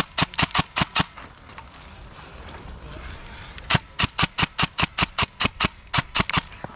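Airsoft gun firing rapid single shots, about five a second, in two strings: the first stops about a second in, and a longer run of a dozen or so shots starts a little past the middle and stops near the end.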